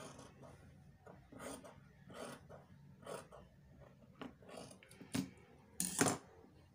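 Sewing scissors snipping small clips into a fabric neckline's seam allowance, a short snip roughly once a second, so the neck facing will turn smoothly; a louder knock comes about six seconds in.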